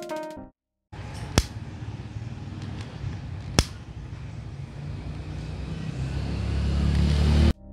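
Butane jet-torch lighter burning with a steady hiss and rumble that grows louder toward the end, with two sharp clicks a couple of seconds apart, as it heats heat-shrink tubing over wire splices. It stops abruptly near the end.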